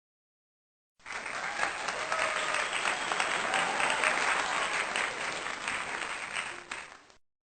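Crowd applause that starts suddenly about a second in and cuts off after about six seconds.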